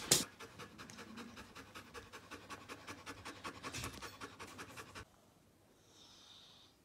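Husky panting rapidly with its mouth open and tongue out, a fast even run of faint breaths that stops suddenly about five seconds in.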